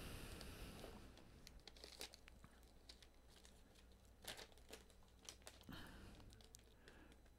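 Faint rustling and crinkling of loose paper sheets being handled and leafed through. The rustle is strongest at the start, followed by a scattering of small paper ticks and taps.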